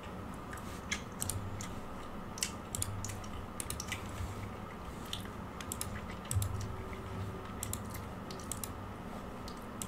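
Scattered, irregular clicks of a computer mouse and keyboard as web pages are clicked through, over quiet room tone.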